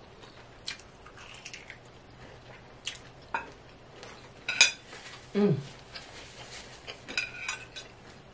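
Close-up eating of crispy fried chicken wings: scattered crunches and mouth sounds, with a short hummed "mm" about five seconds in and a fork clinking on a plate near the end.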